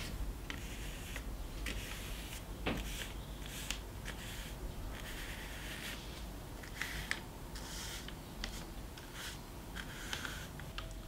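Paintbrush loaded with black paint stroking across a paper sketch board as letters are painted: a series of soft, irregular brushing swishes.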